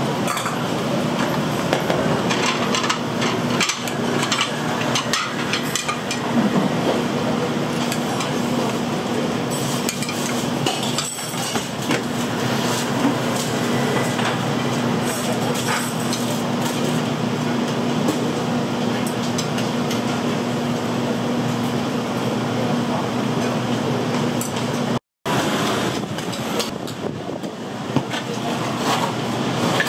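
Restaurant kitchen at work: dishes and utensils clattering and clinking, with sharp knocks, over a steady low hum.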